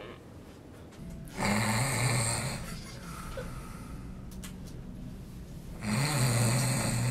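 A person imitating snoring with their voice: two long snores about four seconds apart, each lasting a little over a second.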